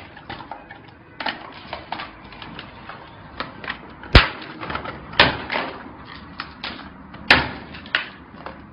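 Claw hammer smashing iPhones on a carpeted floor: three hard strikes about four, five and seven seconds in, the first the loudest, with lighter clicks and knocks of phones and boxes being handled between them.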